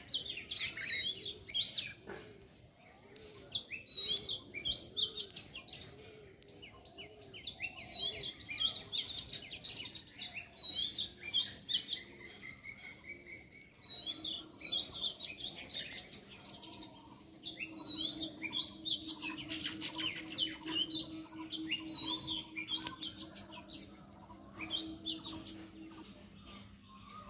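Birds chirping and singing in quick, repeated high phrases, with short lulls between them. A faint, steady low hum runs under them through the second half.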